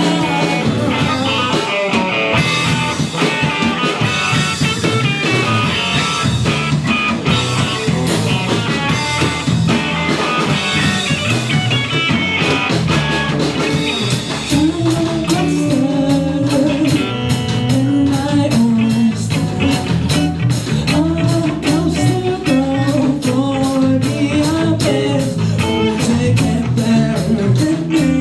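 Live rock band playing a song, with singing over it; a steady drum beat comes through more clearly in the second half.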